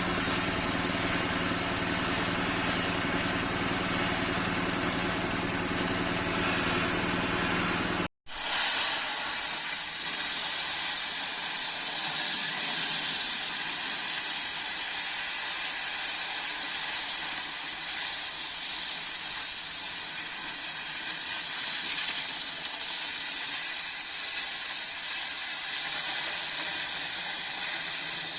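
An engine running steadily for about eight seconds, then an abrupt cut to the steady high hiss of an oxy-fuel gas cutting torch cutting steel, swelling louder a couple of times.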